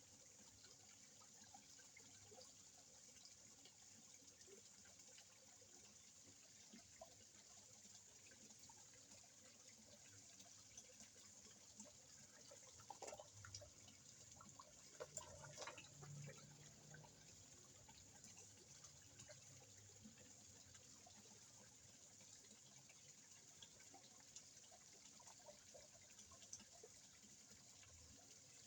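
Faint water trickling and dripping in a small koi pond, with a few small splashes and plops near the middle.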